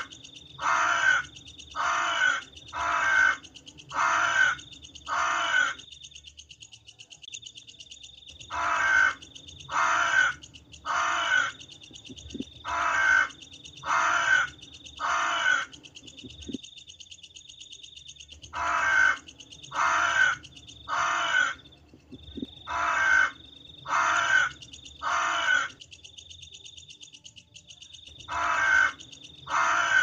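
Crows cawing: groups of six or seven harsh caws about one a second, with pauses of two or three seconds between the groups. A steady high-pitched ring sounds under the calls.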